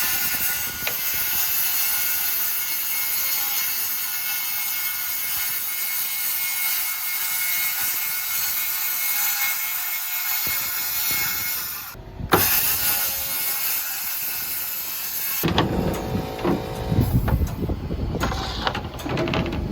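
A power saw cutting steel roofing sheet: a steady high-pitched cutting noise that runs for about twelve seconds, breaks off briefly with a click, and resumes. In the last few seconds an uneven lower rumble takes over.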